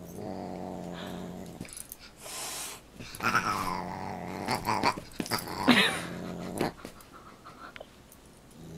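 A dog growling in low bursts as it play-fights with a Siamese cat. Two higher-pitched animal calls bend in pitch, one falling about three seconds in and another near the middle.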